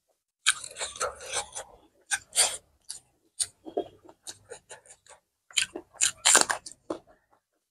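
Close-miked eating sounds: fingers squishing rice and curry on a steel plate, then a crisp bite into a fresh green dalle chilli about six seconds in, followed by chewing and lip smacks.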